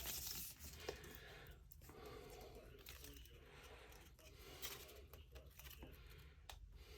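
Faint rustling and crinkling of paper and plastic kit packaging being handled, with a few light clicks.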